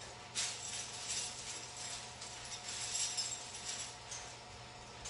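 Faint rustling and handling noise from coats hanging on wall hooks, over a steady low hum.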